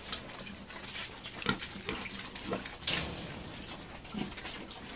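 Pigs grunting in short bursts while they feed, with one sharp knock about three seconds in.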